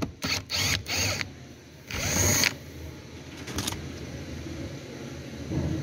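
A run of short scraping and rustling handling noises, the loudest lasting about half a second around two seconds in, from hands working at the driver's door switch and its wiring connector.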